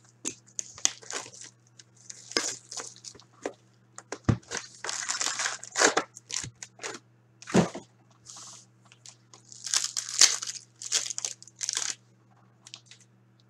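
Cellophane shrink-wrap crinkling and tearing as it is stripped off a box of hockey card packs, then foil packs rustling as they are handled, in irregular crackles with sharp clicks.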